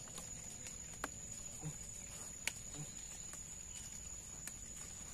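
Steady high-pitched insect drone, cricket-like, from the creekside vegetation. A few sharp isolated clicks cut through it, the loudest about halfway, and there are two short low calls.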